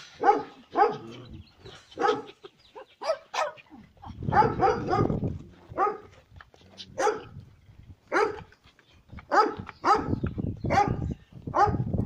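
Dog barking: well over a dozen short, sharp barks, in irregular clusters with brief pauses between.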